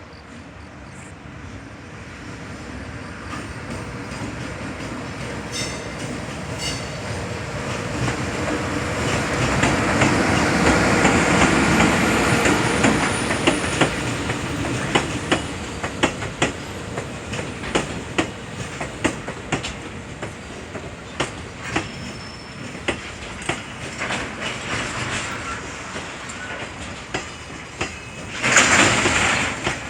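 A JR Freight train hauled by an electric locomotive passes by. Its rumble builds to a peak, then the freight wagons' wheels click over the rail joints in a long, regular run of clicks. There is a brief loud rush near the end.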